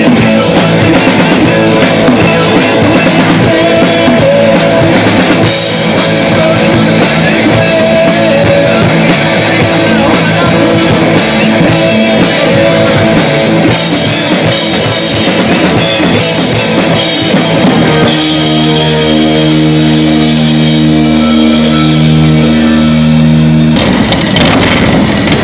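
Live rock band playing loudly: electric guitars, bass guitar and drum kit, with a singer. A little past halfway the band holds long sustained notes, and near the end the music cuts off to a noisier sound.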